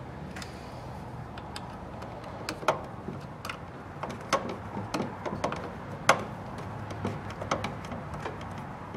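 Scattered metallic clicks and taps of a screwdriver and a combination wrench working the motor-mount screws as they are tightened, a few sharper clicks standing out, over a low steady hum.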